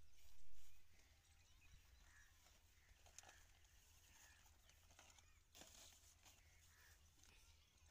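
Near-silent open-field ambience: faint chirps about once a second, a short bump at the start, and soft rustles and clicks of the canvas hose being handled. The diesel pump engine is not running.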